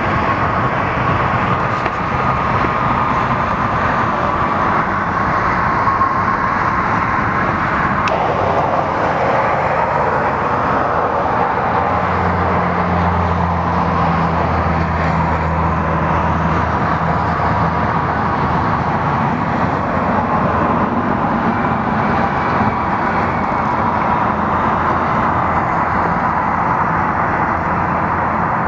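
Steady freeway traffic noise, a constant wash of passing vehicles and tyres with a faint whine running through it. A deeper hum joins for several seconds midway.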